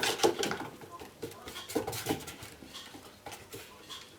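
Cat exercise wheel knocking and clattering as cats scramble in and out of it, a rapid run of clicks and thumps that is loudest in the first half second and thins out after.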